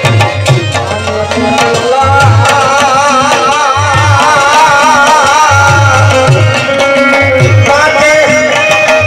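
Live kangopi folk music: a tabla and drum rhythm, with a wavering, held vocal line sung over it.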